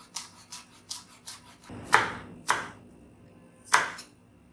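Kitchen knife chopping spring onion on a wooden cutting board: a few light taps of the blade on the board, then three louder knocks.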